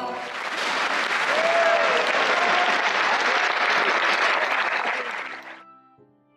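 Concert-hall audience applauding, with a few voices calling out, after an orchestral and vocal performance. The applause cuts off about five and a half seconds in.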